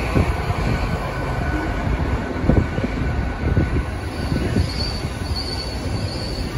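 GWR Class 802 Intercity Express Train moving along the platform: a steady rumble of wheels and running gear, with several short thumps as the wheels cross rail joints. A thin high wheel squeal comes in about four seconds in and lasts a couple of seconds.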